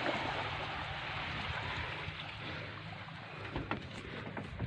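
Small Yanmar marine diesel engine running steadily: a low, evenly pulsing rumble under a steady hiss, with a few light knocks near the end.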